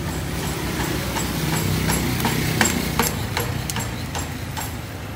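Irregular sharp clicks and taps of lidded plastic juice cups being picked up and handled, two of them louder about halfway through, over a steady low motor hum.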